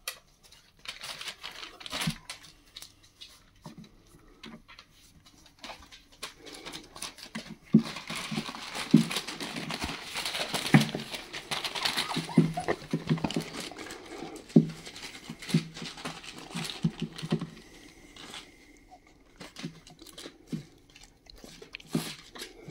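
Four-week-old puppies scrambling over newspaper in a whelping pen, the paper crinkling and rustling with quick pattering steps, mixed with small puppy noises. The rustling is busiest through the middle and thins out toward the end.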